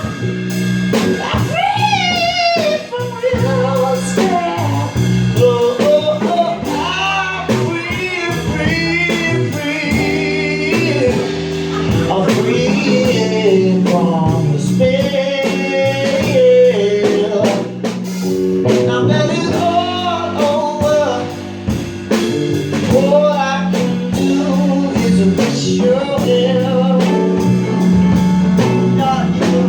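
Live blues jam: a lead guitar plays a solo with bent, wavering notes over bass guitar and a drum kit.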